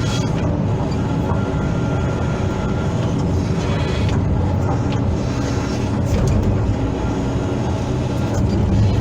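Hydraulic excavator's diesel engine running steadily under load, with a few short metallic clanks.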